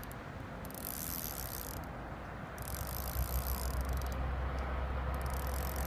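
Spinning reel being cranked to retrieve a jigged lure, its gears making a fast fine ticking in three spells with short pauses between them. A steady low rumble lies underneath.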